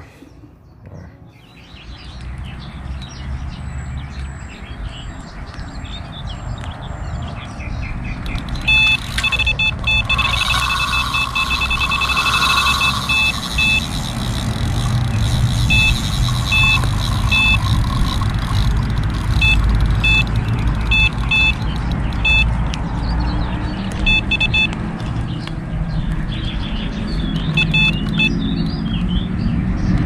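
Electronic carp bite alarm beeping: a rapid string of high beeps about nine seconds in, then scattered beeps until near the end, the sign of a fish pulling line off the rod. A steady low rumble runs underneath, growing louder from about two seconds in.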